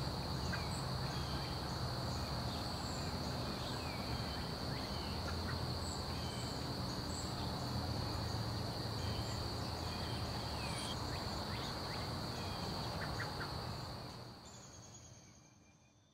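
Dawn ambience: a steady high-pitched insect drone with scattered short bird chirps over a low, continuous rumble, all fading out over the last two seconds.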